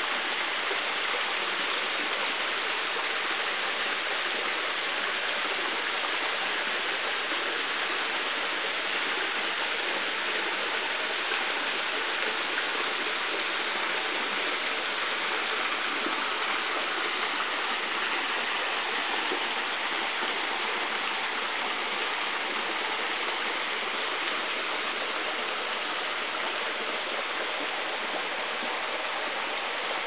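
Waterfall pouring down a limestone cliff face, a steady, unbroken rush of falling water.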